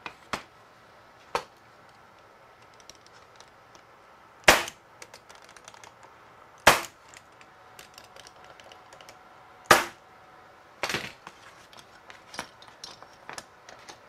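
Pneumatic staple gun firing three staples into a mitred wooden corner held in a corner clamp, a couple of seconds apart. Quieter knocks and clicks from the wood and clamp being handled come between the shots.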